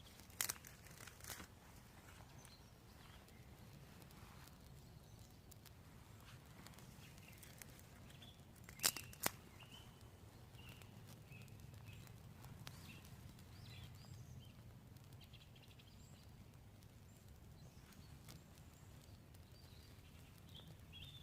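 Quiet outdoor ambience with a steady low rumble, broken by a few sharp knocks or snaps: two near the start and a louder pair about nine seconds in. Faint short high chirps come and go in the second half.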